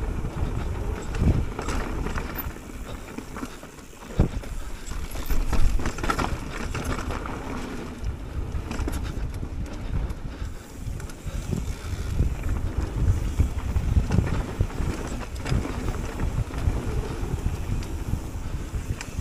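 Mountain bike riding down a dirt singletrack: wind rushing over the on-bike camera's microphone and the tyres rumbling on the dirt, with occasional sharp knocks and rattles from the bike over bumps, a loud one about four seconds in.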